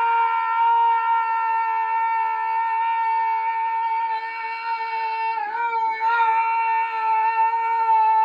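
A man's long, loud scream held on one steady pitch, with brief wavers about five and a half seconds in and near the end.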